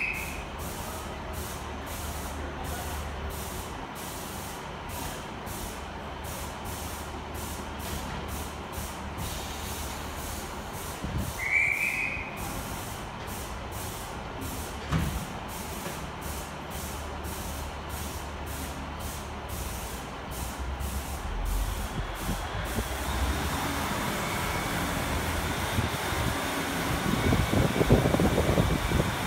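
Diesel multiple unit standing with a steady hiss of air, pulsing rapidly, and a brief high whistle about twelve seconds in. Near the end the hiss stops and its diesel engines rev up, growing louder as the train pulls away.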